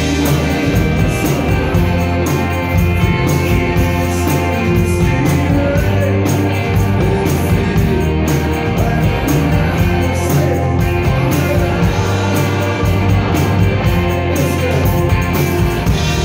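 Live rock band playing loud: electric guitars and a drum kit keep a steady beat, and a male lead singer sings over them.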